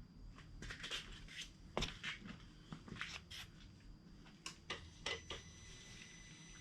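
Scattered light clicks and rustles of hands handling gear and switches, then a faint steady high-pitched whine starts about five seconds in.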